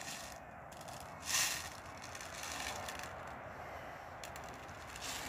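Handling of an airsoft pistol's CO2 magazine while a CO2 capsule is fitted: a short burst of hiss about a second and a half in, then small clicks and scraping.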